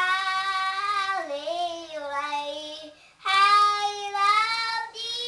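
A small boy of nearly four singing long held notes, with a short break for breath about three seconds in before the next phrase starts.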